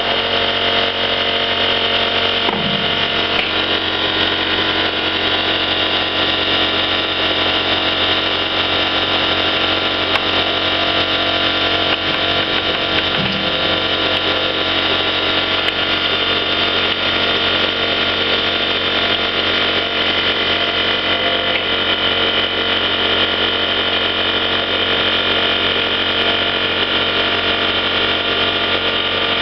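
Emi-Mec E Sprint automatic plugboard lathe running steadily as it turns small parts, a constant machine hum made of many steady tones.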